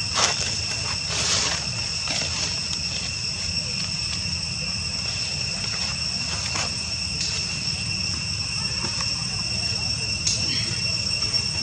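Steady high-pitched buzzing of an insect chorus in the trees, over a low steady rumble, broken by a few short sharp sounds: one at the very start, one about a second in, one past the middle and one near the end.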